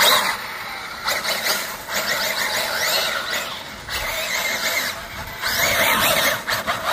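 Arrma Felony RC car's large sensored brushless motor whining under throttle, its pitch rising and falling again and again as it accelerates and slows.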